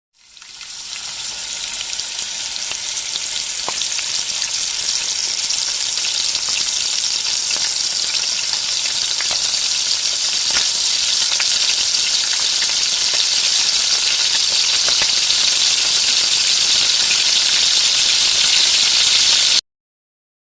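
Food frying in hot oil: a steady sizzling hiss with scattered crackles and pops, fading in over the first second or two and cutting off suddenly near the end.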